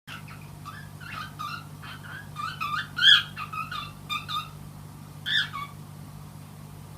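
A pet cat making a quick run of short chirps and trills, the loudest about three seconds in, over a steady low hum.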